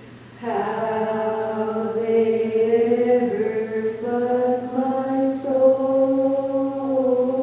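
A woman's voice singing a slow song, holding long notes that glide gently between pitches.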